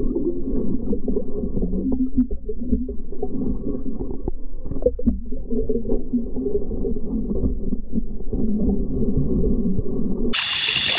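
Muffled underwater sound heard through a camera's waterproof housing as it moves through submerged grass in flowing floodwater: a steady low rush of water with scattered knocks and rubs. Near the end it cuts abruptly to a much brighter open-air sound.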